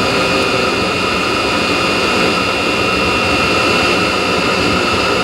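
Chinese diesel heater running steadily at a raised heat setting while burning 10W-30 engine oil: a loud even rush of combustion with a steady fan whine over it.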